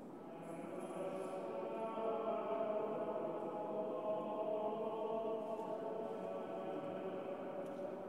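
Church choir singing a slow chant in long, held notes, swelling in over the first couple of seconds and slowly fading toward the end.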